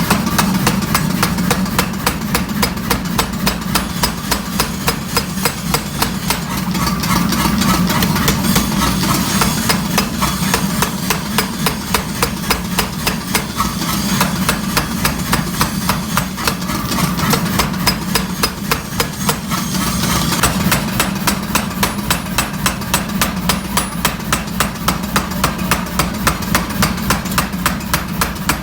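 Rapid, evenly spaced hammer blows forging a 5160 spring-steel knife blank, over a steady machine hum.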